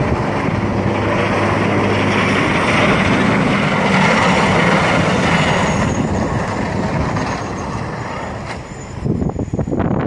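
Camera drone's propellers whirring steadily, easing off near the end, where wind buffets the microphone in gusts.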